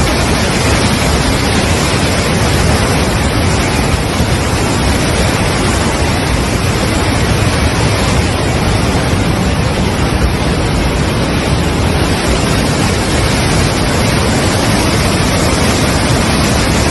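Floodwater in a muddy flash-flood river rushing in torrent, a loud, steady roar of water with no let-up. It cuts off abruptly at the end.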